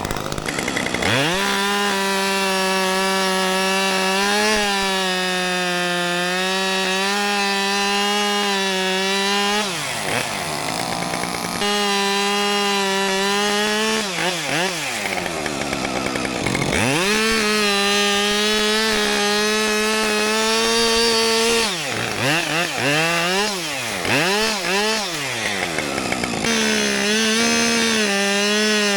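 Two-stroke chainsaw cutting wood: it revs up to full throttle and holds a steady high whine through long cuts, then drops back to idle between them. A few quick throttle blips come near the end before it runs up to full speed again.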